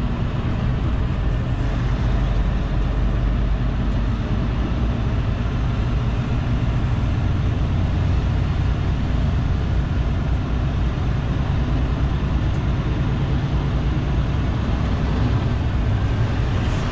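Semi-truck's diesel engine pulling at low speed, heard from inside the cab: a steady low rumble with cab and road noise.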